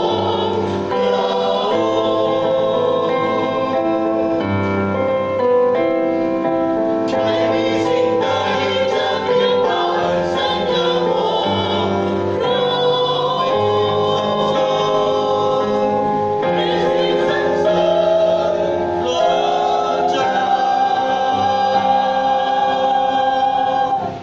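Mixed choir of women's and men's voices singing a Christian hymn in harmony, ending on a long held chord over the last few seconds.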